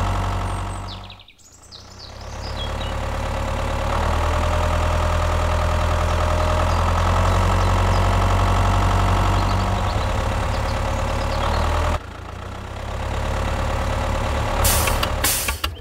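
Tractor engine running steadily at idle. It fades away about a second in and builds back up, breaks off suddenly about four seconds before the end and resumes, and a few sharp clicks come near the end.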